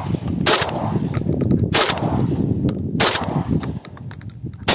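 Shotgun fired at flying ducks: four shots in quick succession, about a second and a quarter apart, the last one right at the end.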